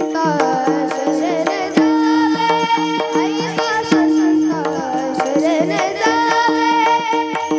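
Marathi varkari bhajan music: a sung melody that bends and glides over a steady drone. Hand-drum strokes and small hand cymbals keep a regular beat throughout.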